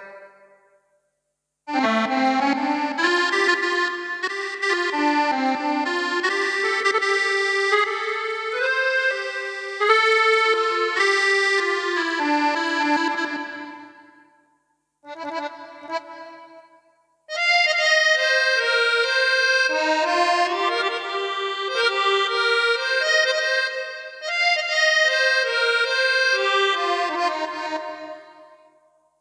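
Yamaha PSR-S770 arranger keyboard playing an accordion voice: a melody with held notes in three phrases, the middle one short, with brief pauses between them.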